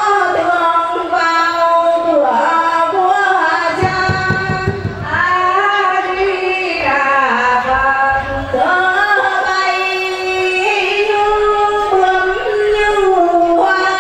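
A woman's voice singing a slow devotional offering song into a microphone, amplified, with long held notes that slide between pitches.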